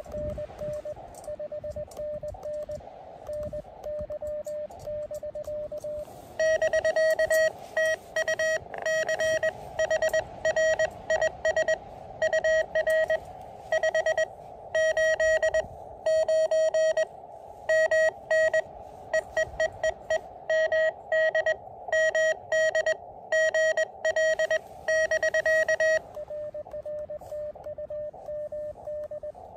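Morse code (CW) from an Elecraft KX2 transceiver: dits and dahs keyed on one steady pitch. About six seconds in, a much louder, harsher keyed tone takes over for some twenty seconds. Near the end the fainter tone returns.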